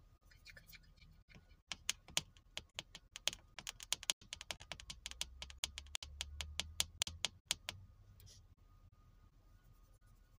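Typing on a keyboard: a quick, irregular run of clicking keystrokes starting about two seconds in and stopping a little before the end.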